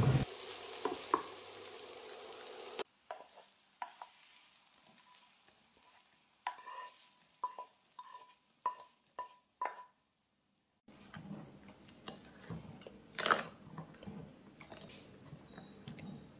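A tempering of small onions, curry leaves and mustard seeds sizzles in sesame oil in a nonstick pan as a spatula stirs it, and the sizzling stops abruptly after about three seconds. Then comes a run of about seven light taps with a short ring as the tempering is scraped from the pan into a glass bowl of batter. Near the end a ladle stirs the thick batter and knocks once against the bowl.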